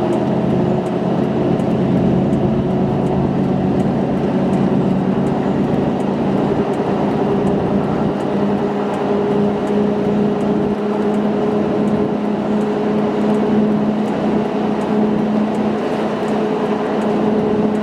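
Ford F-150's 5.3-litre Triton V8 running steadily under load as the truck climbs a hill, heard from the cab, its note edging up slightly a few seconds in. The engine is down on power and running rough, a fault suspected to be a failing variable valve solenoid.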